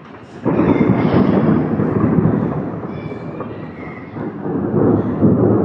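Thunder: a loud clap breaks about half a second in and rolls on as a rumble, easing off and then swelling again near the end.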